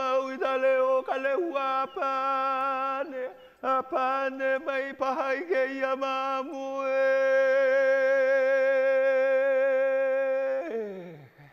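A solo voice chanting: wavering, bending phrases, then one long note held steady for about four seconds that slides down and fades near the end.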